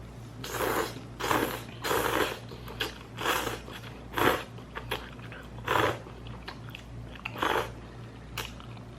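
Close-up mukbang eating sounds: hot-pot noodles being slurped and chewed in a string of short noisy slurps, about one a second, over a steady low hum.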